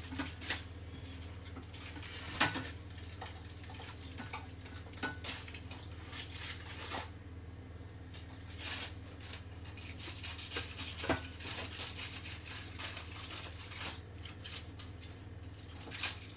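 Wooden spatula scraping and knocking on a foil-lined metal baking tray as baked salmon fillets are lifted and separated: scattered scrapes and clicks with a few sharper knocks, over a steady low hum.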